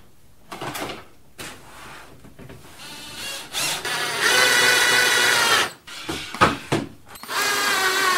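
Cordless drill-driver driving screws through a metal mending plate into the edge of a plywood board: a steady motor whine starts about three seconds in, runs for about two and a half seconds and stops, then starts again near the end. A few short knocks of handling come in the first second.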